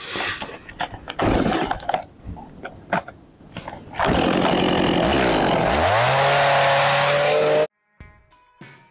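Chainsaw cutting into wood in short bursts, then about four seconds in a long continuous run in which the engine note dips and climbs back to a steady high speed. It cuts off abruptly near the end, leaving faint plucked music.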